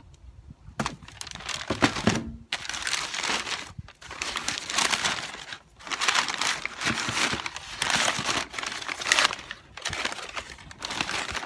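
Packaging crinkling and rustling as parts are handled and unwrapped, in bursts with short pauses, starting about a second in.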